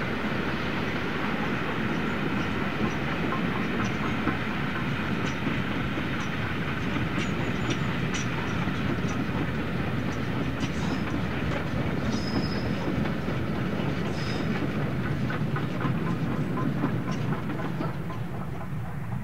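A train rolling past at close range, with its wheels clicking over the rail joints in a steady rumble. Brief high wheel squeals come about two-thirds of the way through, and the sound fades near the end as the train moves away.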